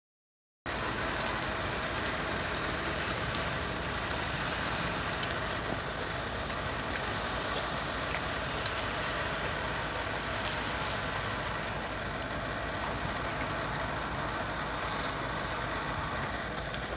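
Steady rushing outdoor background noise that cuts in abruptly after a moment of silence, with a few faint clicks and no shots or bugle.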